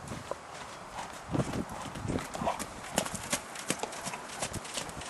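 Hoofbeats of a grey horse trotting on wet sand arena footing, a few soft irregular thuds a second.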